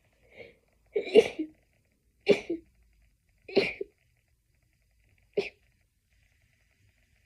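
A person's stifled sneezes in a fit: four sharp, muffled sneezes about a second apart, each a little fainter than the last, after a faint short sound about half a second in.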